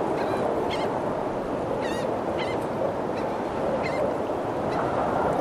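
Birds giving short, wavy calls every second or so over a steady rushing background noise.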